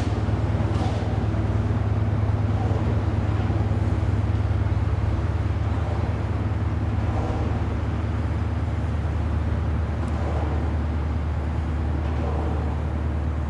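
A motor boat's engine running at speed: a steady low drone, with the rush of water under it.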